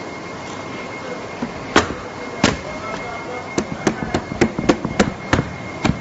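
Cut pieces of honeycomb cardboard being pressed and pushed out of the board by hand. They give about ten sharp cardboard knocks and cracks: two a little apart, then a quick run of eight, over a steady machine hum with a thin high whine.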